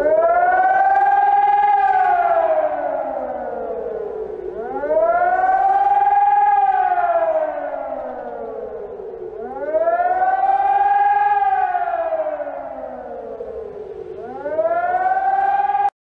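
German civil defence warning siren wailing: its pitch climbs quickly, then sinks slowly, about every five seconds, four times over, before breaking off abruptly. This is the rising-and-falling howl that Germany uses as its general public warning signal.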